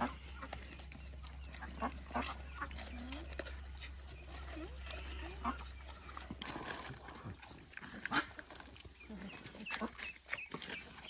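Farm animals making short calls at feeding time, with scattered knocks and clicks.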